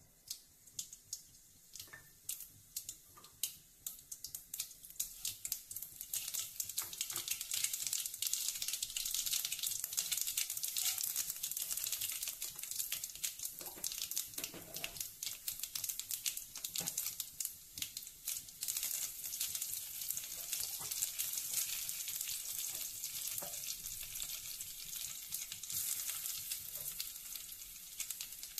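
Mustard seeds and spices tempering in hot oil in a stainless steel kadai. Separate sharp pops and crackles come first, then from about six seconds in a steady, crackling sizzle as the chana dal, cumin and other tempering spices fry.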